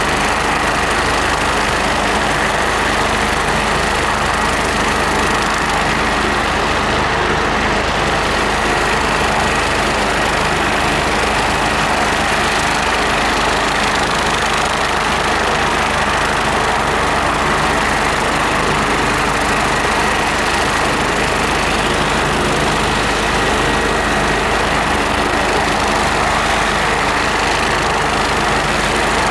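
Air ambulance helicopter running on the ground: its turbine engine runs steadily, a constant loud rumble with a steady high whine over it.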